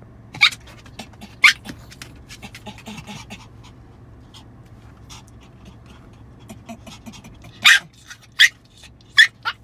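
Small terrier dog giving short, sharp yips and whines: two in the first second and a half, then a quick run of several from about seven and a half seconds in. A steady low hum from the car runs underneath.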